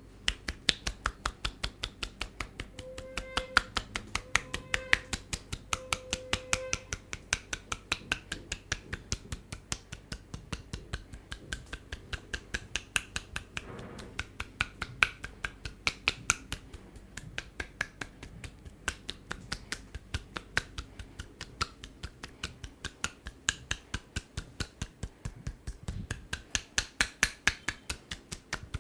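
Rapid, even, sharp strikes of a head massage, about four to five a second, typical of the barber's quick hand-tapping stroke on the head.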